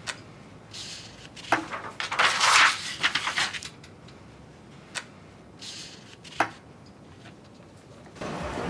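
Household handling sounds: a few sharp clicks and knocks, with a burst of clattering and rustling about one and a half to three and a half seconds in. Steady street noise comes up just before the end.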